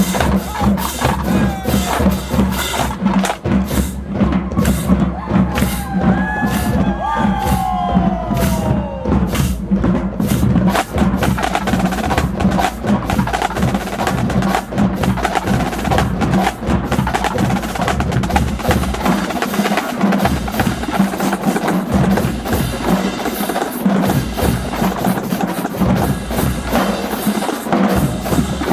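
Marching band drumline of snare, tenor and bass drums playing a fast, dense percussion cadence, with sharp rim and stick clicks among the drum strokes.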